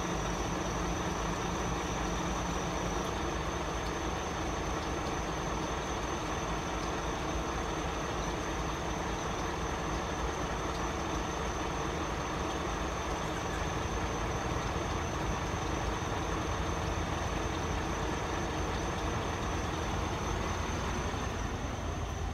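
A road vehicle's engine idling steadily while it waits at a closed level crossing, with a thin, steady high-pitched tone above it.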